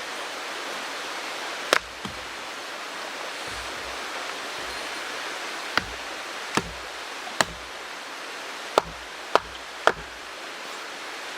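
Steady rush of a mountain stream, with seven sharp knocks at irregular intervals, most of them between about six and ten seconds in.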